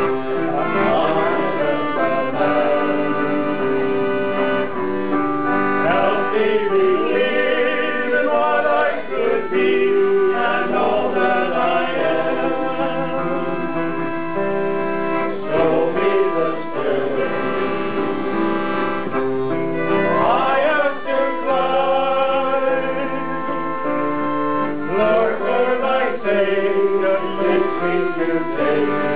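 A small group of men singing together to accordion accompaniment, the accordion's held chords under the voices.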